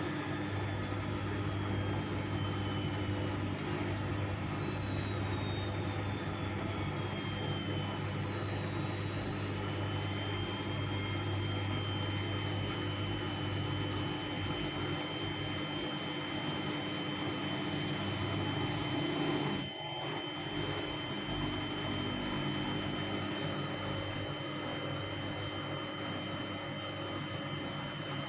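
Vestel CM8710 washing machine's drum motor running at spin speed with a steady whine; the pitch eases down over the first several seconds and then holds, and starts to rise again near the end.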